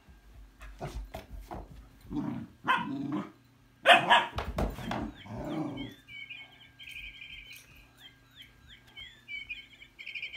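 Dogs at play barking, several barks from about two seconds in, the loudest about four seconds in. After that come repeated high-pitched squeaks to the end.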